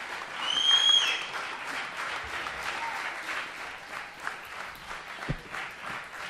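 Audience applauding steadily after a stage performance, with a shrill whistle from the crowd about half a second in, the loudest moment, and a single low thump near the end.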